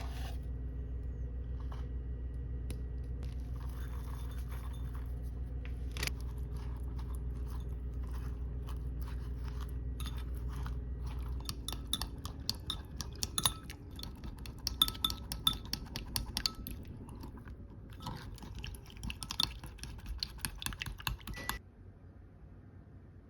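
A steady low hum, which stops about halfway through. It is followed by a run of irregular crisp crunches and clicks that cuts off suddenly near the end.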